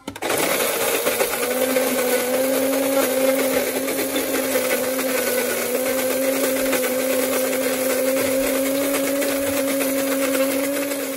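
Krups electric burr coffee grinder running steadily as it grinds coffee beans on a coarse setting. Its motor comes up to speed in the first second, holds a steady hum and stops at the very end.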